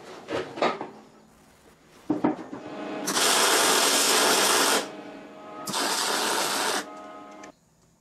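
MIG welder tacking steel box section: two bursts of steady crackling arc, the first about a second and a half long and the second about a second, after a few light metal knocks.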